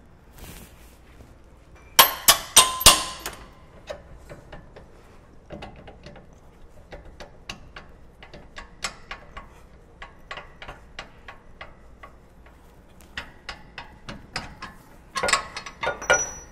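Hand tool working a rear suspension arm bolt loose: irregular metallic clicking and ticking, with a quick run of four sharp, ringing metal clicks about two seconds in and another loud flurry near the end.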